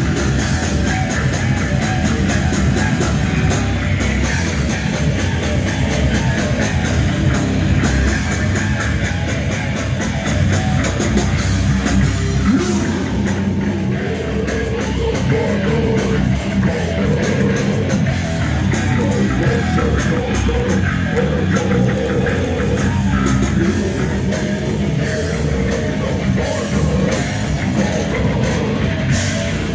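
Heavy metal band playing live: distorted electric guitars, bass and a drum kit, loud and dense, with a vocalist coming in on the microphone about halfway through.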